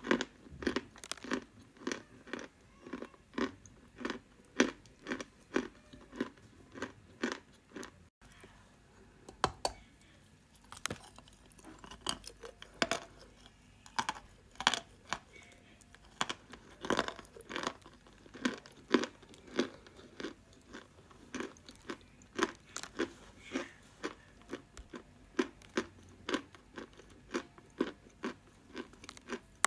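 A dry lump of edible chalk being bitten and chewed close to the microphone: sharp dry crunches at about two to three a second, with a short pause about eight seconds in.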